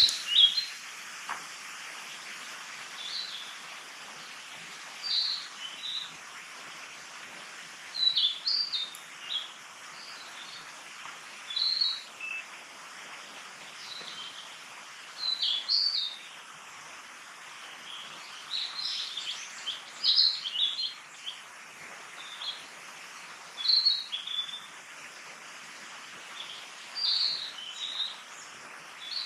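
Woodland birds singing: short, high chirping phrases every two to three seconds over a steady background hiss.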